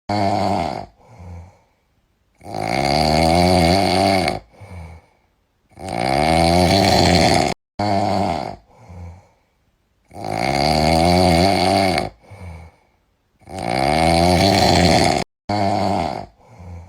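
A sleeping cat snoring loudly: four long pitched snores of about two seconds each, each followed by one or two shorter snores, in a regular repeating rhythm.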